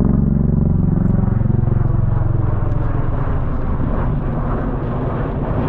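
Low-flying airplane passing overhead: a loud, steady engine drone whose pitch drops about a second in.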